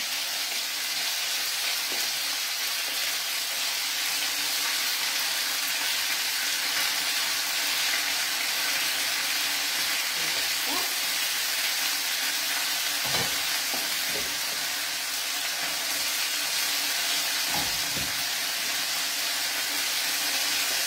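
Thin pork slices sizzling steadily in hot oil in a frying pan, a constant high hiss. There are a few faint light knocks as the slices are handled and turned.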